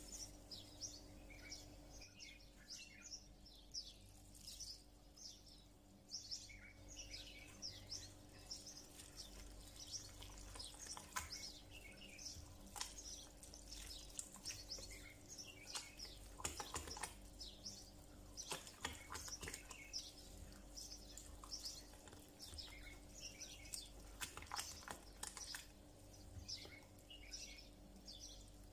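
Small birds chirping faintly and continuously, with a few sharp clinks and scrapes of a silicone spatula stirring a thick herb and egg batter in a glass bowl, over a faint steady hum.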